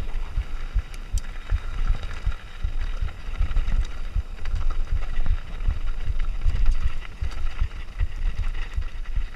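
Mountain bike descending a dirt trail at speed: tyre noise and scattered clicks and rattles over the ground, with wind buffeting the camera microphone in irregular low thumps.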